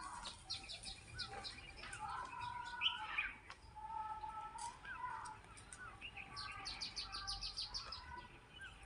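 Several small birds chirping and calling, with quick runs of short high chirps and brief rising whistle notes in between.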